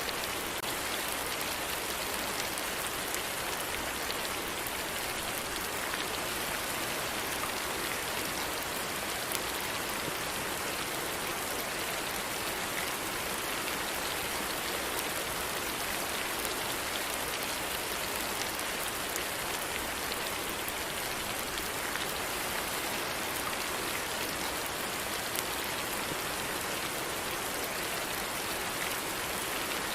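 Steady, constant rain falling on a surface, with many fine drop patters.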